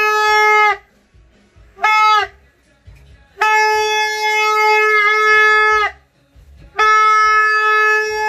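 Plastic New Year's party horn (torotot) blown in honks of one steady buzzy note. A blast ends under a second in, a short toot comes about two seconds in, then two long blasts of about two and a half seconds each.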